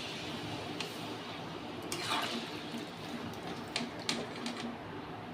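Chicken curry cooking in a pan on the stove with a faint steady hiss, and a few light clicks of a utensil against the pan.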